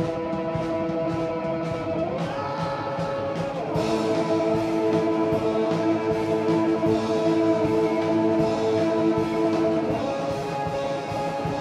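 Live heavy rock from an electric guitar and a drum kit: the distorted guitar holds long, sustained chords that change about two seconds in, again near four seconds and once more near the end, with drum hits underneath.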